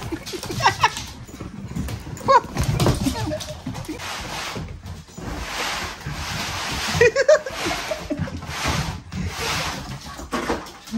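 Jack Russell and Border Collie puppies play-fighting: a few short yips and growls over the scuffle and scrabble of paws on a wooden floor.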